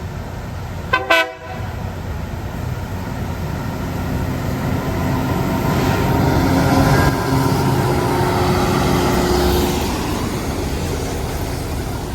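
Loram rail grinder train working along the track: a short horn toot about a second in, then the grinding and engine noise of the train swells, loudest around the middle, with a steady rumble and hiss and some held tones, and eases slightly near the end.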